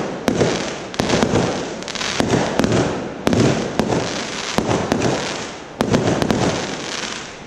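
Fireworks going off in rapid volleys of sharp bangs and crackling, a new volley starting roughly every second.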